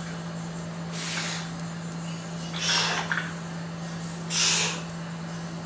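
A man breathes out hard in short hissing breaths, three of them evenly spaced, one with each rep of close-grip barbell curls. A steady low hum runs underneath.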